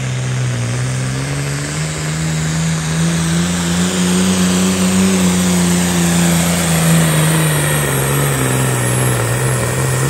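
Ford TW-10 farm tractor's turbocharged six-cylinder diesel running at full throttle under heavy load as it drags a weight-transfer pulling sled. Its pitch climbs a little through the middle of the pull and sags toward the end as the load builds.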